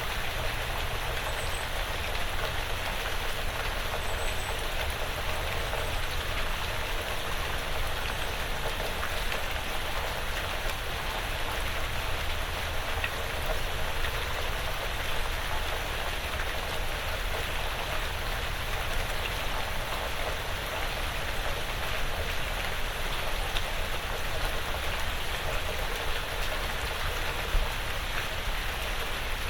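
Steady light rain pattering on a porch roof and the surrounding woods.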